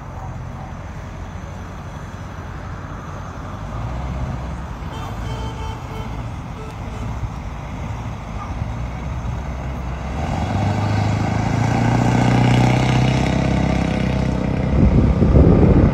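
Engine of a stretched limousine pickup truck carrying a camper, running as it pulls out and drives off, growing louder in the last few seconds.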